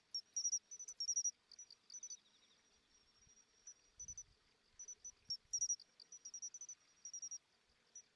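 Crickets chirping: short, high chirps in groups of two to four, repeating irregularly.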